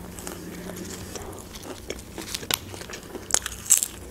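Close-miked chewing of Turkish pide: soft wet mouth clicks and lip smacks, with a few sharper smacks in the second half.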